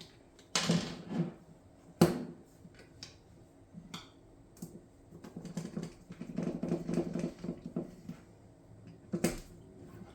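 Parts of a Drracer pump paintball marker clicking and tapping together as they are handled and fitted during reassembly. There are sharp clicks about half a second, two seconds and nine seconds in, with a run of lighter rattling and scraping in the middle.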